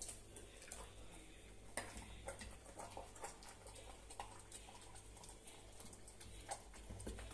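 A yellow Labrador chewing and eating something on the floor: faint, irregular clicks of its jaws and teeth.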